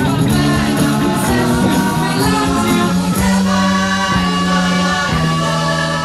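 Music with singing: long held vocal notes over a steady accompaniment.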